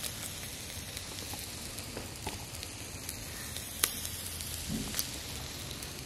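Masala-rubbed carp steaks sizzling on a wire grill over hot charcoal: a steady hiss with a few sharp pops.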